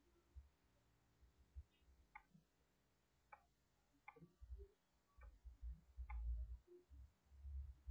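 Faint computer mouse button clicks, about six of them spaced unevenly a second or so apart. Low dull thumps rise underneath toward the end.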